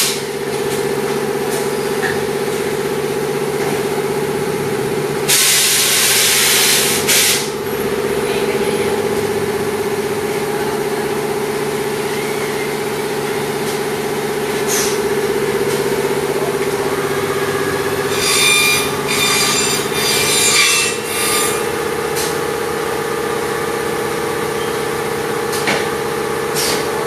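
CNC corner cleaning machine for welded plastic window frames running with a steady hum. A two-second burst of air hiss comes about five seconds in, and later a choppy, rasping stretch of about three seconds as its tools work the corner.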